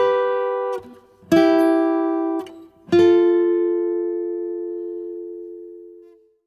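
Short intro music: three chords on a plucked string instrument. The first two are cut short, and the last is left ringing and fades out over about three seconds.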